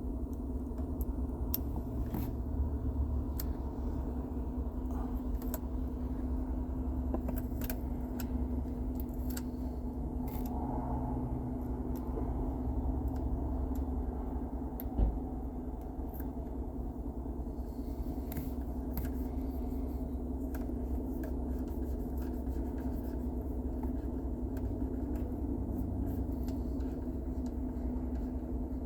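Steady low hum throughout, with scattered light clicks and taps of small plastic climate-control button parts being picked at and handled, and one sharper knock about fifteen seconds in.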